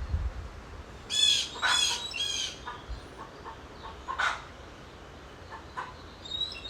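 A bird squawking: three harsh calls in quick succession about a second in, then a single shorter call near the middle, with a few faint chirps between.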